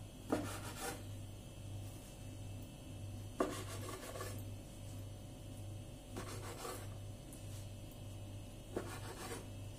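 Kitchen knife slicing a rolled, filled pastry-dough log into pieces on a wooden board: four cuts about two and a half seconds apart, each a sharp tap of the blade followed by a short rasping saw through the layered dough.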